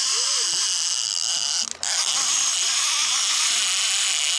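Line-counter baitcasting reel being cranked hard against a snagged fish, a steady mechanical whirring hiss that breaks off briefly a little under two seconds in.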